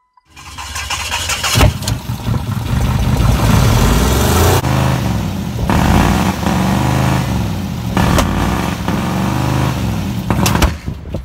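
Car engine running and being revved up and down several times, with a few sharp cracks along the way.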